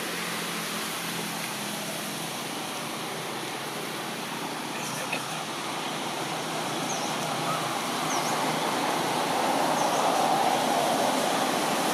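Steady rushing outdoor background noise that grows louder through the second half, with a few faint, short, high chirps from about the middle on.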